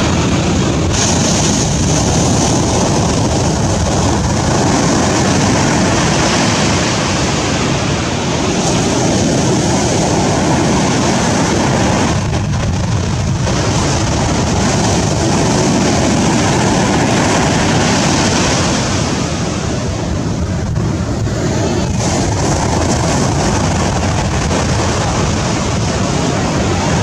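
Ocean surf washing steadily, a constant rushing that eases briefly twice.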